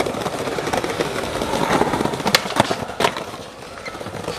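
Skateboard wheels rolling over stone paving slabs, a continuous rough rumble, with three sharp clacks of the board a little past the middle.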